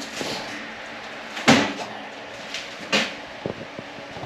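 Two sharp clunks about a second and a half apart, followed by a few lighter clicks, over a steady background hum.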